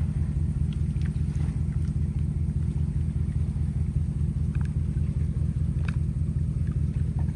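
Engine running steadily with a low, evenly pulsing rumble, likely a fishing boat's outboard motor.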